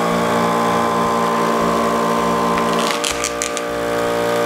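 Two Lagenda electric balloon pumps running together, each blowing up a 260 twisting balloon: a steady electric motor hum. The hum's pitch pattern shifts about three seconds in, with a few short squeaky clicks just after.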